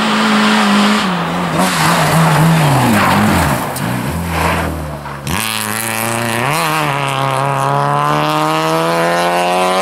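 Rally car engine on a snowy stage: the revs fall as the car slides sideways through a corner, then climb steadily as it accelerates away.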